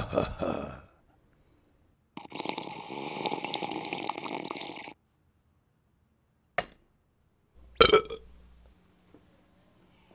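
A long burp lasting about three seconds. It is followed by a short click and then a louder sharp knock, after which a faint steady hum runs on.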